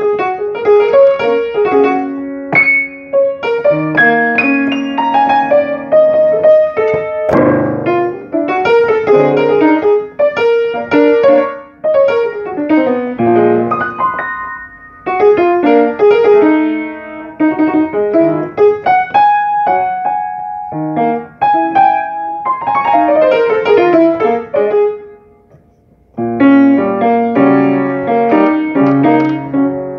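Solo piano being played: a steady stream of chords and melody notes, with a short pause about 25 seconds in before the playing picks up again.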